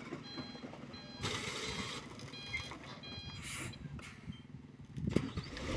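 A heavy truck's reversing alarm beeping in quick repeated short beeps, over the low rumble of its engine running. Two short hisses come in, about a second in and again past three seconds, and there is a louder low rumble near the end.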